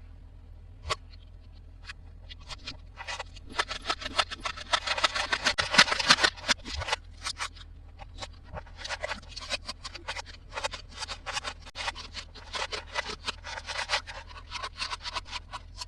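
Toy packaging being handled and opened: a dense run of crinkling and scraping about four to seven seconds in, then a string of short scraping strokes.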